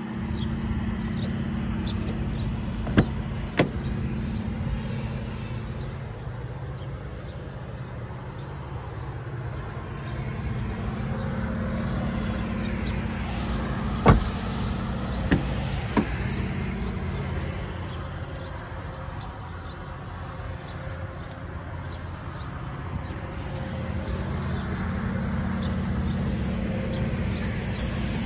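Supercharged 3.0-litre V6 of a 2016 Range Rover Sport idling steadily, its hum swelling and fading slightly. A few sharp knocks are heard, the loudest about halfway through.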